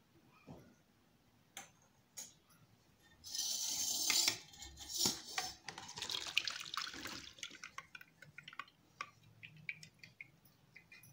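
Sugar syrup and soft cooked amla (Indian gooseberry) pieces poured from a steel pot into a steel mesh strainer, with a short splashing pour about three seconds in and a longer one around six to seven seconds. Steel clinks and dripping follow.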